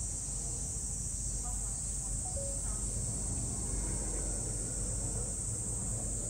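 Steady, high-pitched drone of insects, over a low background rumble and faint distant voices.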